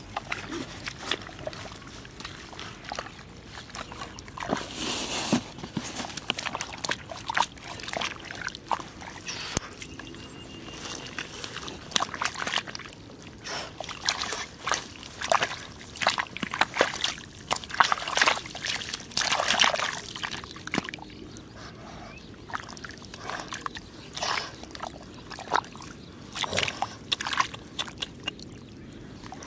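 Bare hands digging and scraping through wet mud and grass at a paddy bank, with irregular squelching, splashing and rustling that is busiest in the middle stretch.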